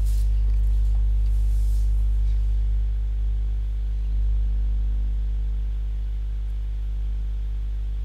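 Steady low electrical hum, mains hum carried in the recording, with a faint buzz of evenly spaced overtones above it.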